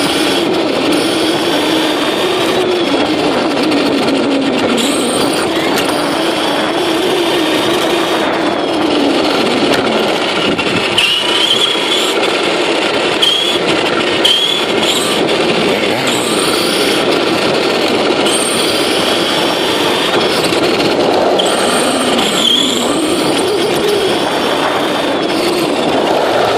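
Onboard sound of a Torment RC short course truck driving over rough asphalt: a steady rush of tyre and road noise with a wavering motor drone, and short rising whines each time it speeds up.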